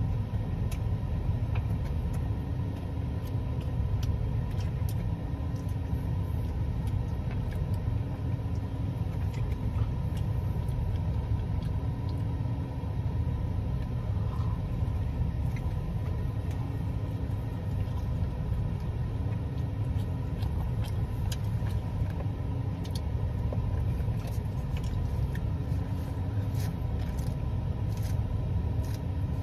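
Someone chewing a roast beef sandwich, with faint scattered clicks, over a steady low rumble that is the loudest sound throughout.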